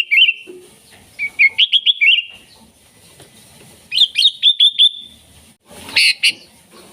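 Sooty-headed bulbul (kutilang) singing in short, lively phrases of quick, bubbly chirping notes, about four phrases with pauses between them; the phrase near the end is louder and harsher.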